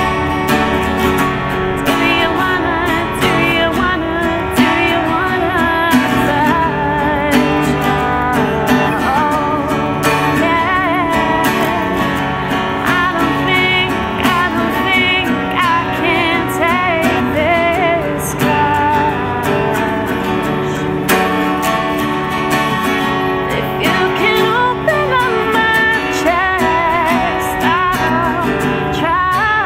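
A woman singing a folk-pop song while strumming a steel-string acoustic guitar.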